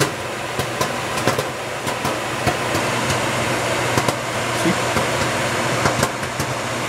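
Popcorn kernels popping in a paper bag inside a running microwave oven: sharp irregular pops, one or two a second, over the oven's steady hum. The kernels are in the middle of popping.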